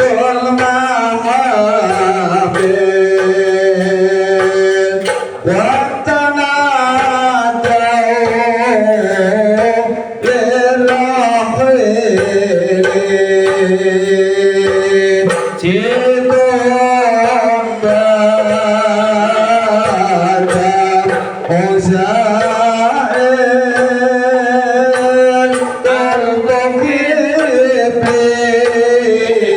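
Music: a voice singing long, sliding held notes over hand-drum percussion.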